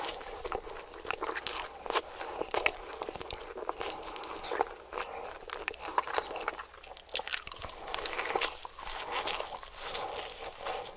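Close-miked eating: a person biting and chewing crispy fried food with irregular wet crunches and crackles.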